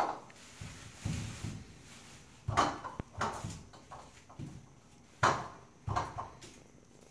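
Fur and terrycloth towel rustling under a hand stroking a tiny kitten: irregular scuffs, the loudest two coming about two and a half and five seconds in.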